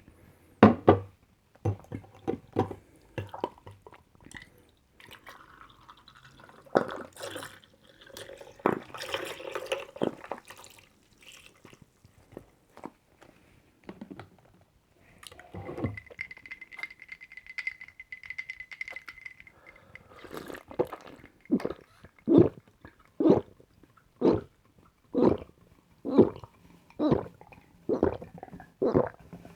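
Someone drinking a non-carbonated fruit drink close to the microphone: handling and liquid sounds at first, then steady gulps about once a second in the second half.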